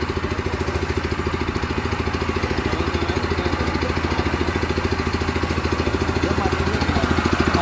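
Petrol engine of a Hyundai single-drum baby roller (plate compactor-type walk-behind roller) running steadily, with a low hum and an even, rapid pulsing chug, a little louder near the end.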